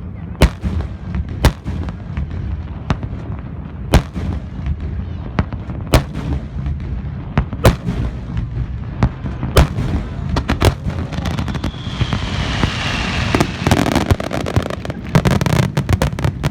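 Fireworks finale: aerial shells bursting with sharp bangs every second or two over a steady low rumble of booms. About twelve seconds in, a hissing, crackling haze with a faint falling whistle builds, and near the end the bangs come thick and fast.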